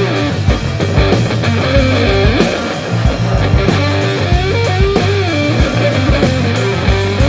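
Background rock music with electric guitar lines over bass and a steady drum beat.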